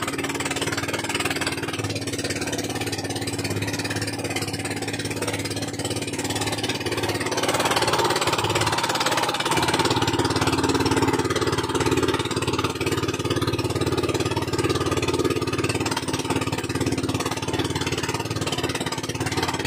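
Small fishing boat's engine running steadily with a fast even chugging beat, getting a little louder about a third of the way in.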